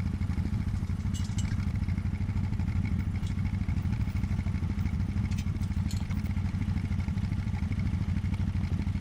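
ATV engine running at a steady pace, with a few light clicks over it.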